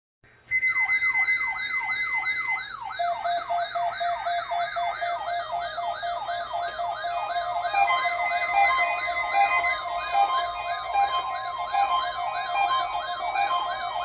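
Several NOAA weather alert radios sounding their alert alarms at once, set off by the National Weather Service's Required Weekly Test. The sound starts about half a second in: a repeating falling, siren-like whoop about three times a second, layered over steady and pulsing electronic beep tones.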